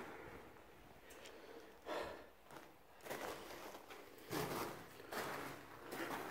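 Footsteps on the stony floor of a tunnel, irregular steps about one a second.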